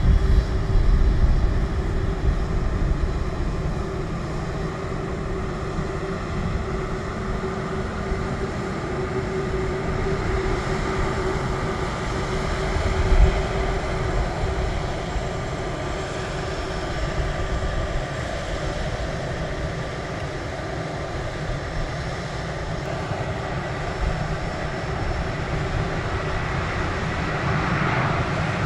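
Airbus A380 turbofan engines running at low taxi power: a steady whine over a low rumble as the airliner taxis past, swelling briefly about halfway through.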